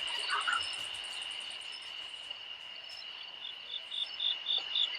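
Insects calling: a steady high drone, joined about three and a half seconds in by a regular chirping of about three pulses a second.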